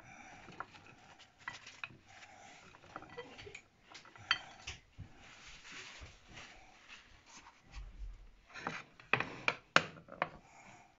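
Kitchen handling sounds: paper towel rustling and rubbing as cut raw potato strips are blotted dry and tipped onto a plate, with small clicks throughout and a few sharper clicks of the plate or utensils near the end.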